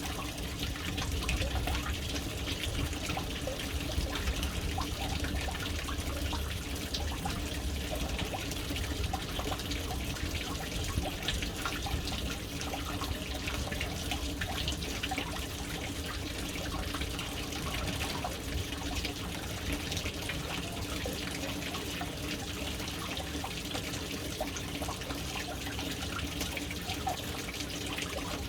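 Water pouring steadily into a household water tank, an even splashing with many small drips and trickles over a low steady hum.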